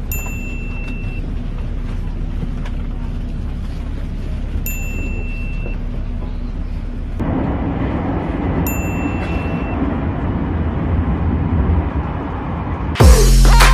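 Metro train car running: a steady rumble that gets louder about seven seconds in. Three short high beeps sound about four seconds apart, and loud music with a heavy beat cuts in just before the end.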